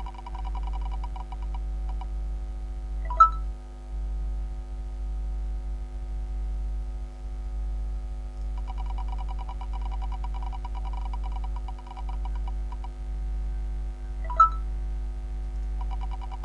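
On-screen fortune wheel sounds: a rapid flutter of ticks while the wheel spins, which comes and goes, and two sharp ringing clicks, the loudest sounds, over a steady electrical hum with faint steady tones.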